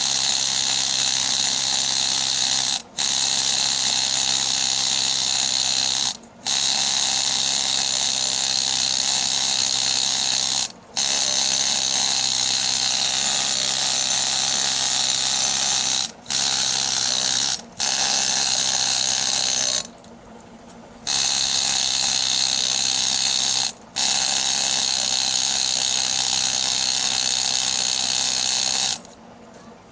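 Pneumatic needle scaler hammering steadily, cut off briefly several times as the trigger is released, with one longer pause about two-thirds of the way through.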